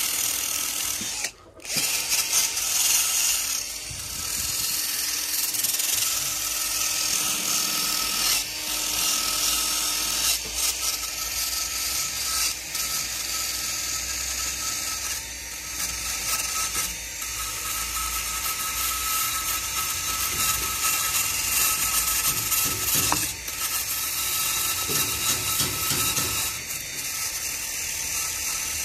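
Cordless drill spinning a wire wheel brush against the scooter's transmission case gasket face, a steady scratchy scrubbing with the drill motor's whine; it stops for a moment about a second in. The brush is stripping old gasket residue so the new gasket will not leak oil.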